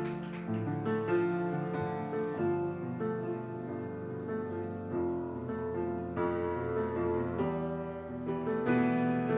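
Solo piano playing a slow, quiet introduction of sustained chords, before any singing comes in.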